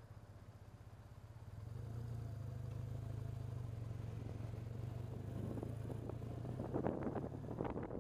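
Motorcycle engine running with a steady low hum as the bike pulls away, getting louder about a second and a half in. Wind starts buffeting the microphone near the end as speed builds.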